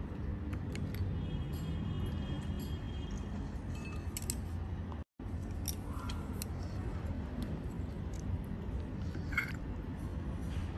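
Chopsticks and a ceramic spoon making small scattered clicks and clinks against a porcelain bowl and clay pot, over a steady low background rumble.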